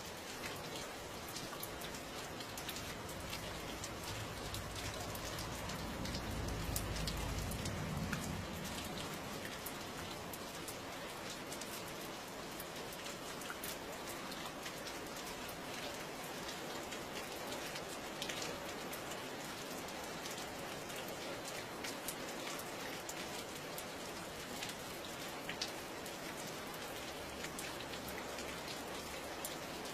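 Steady rain, with individual drops ticking sharply on a surface. A low rumble swells and fades about six to eight seconds in.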